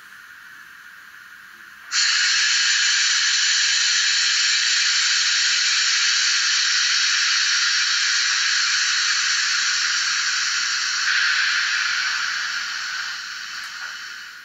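Digital sound decoder of a Roco HO-scale model steam locomotive playing a steam hiss through its onboard speaker. The hiss starts suddenly about two seconds in, holds steady, then fades away over the last few seconds.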